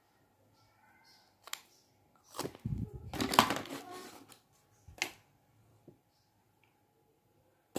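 Lipstick tubes and caps clicking and knocking together as they are picked up and handled. There are a few separate clicks, with a busier clatter around the middle.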